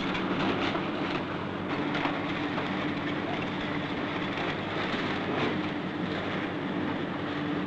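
A heavy machine's engine running steadily, with a droning hum and scattered clatter.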